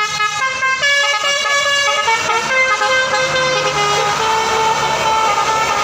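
Bus telolet horn playing a tune of stepped, changing notes, the bus's engine running underneath from about halfway through.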